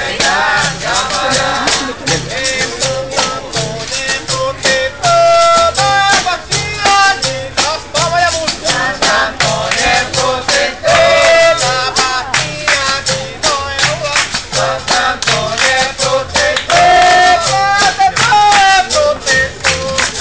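Capoeira angola music: singing over the berimbau and its caxixi rattle, with hand percussion and a drum keeping a steady beat.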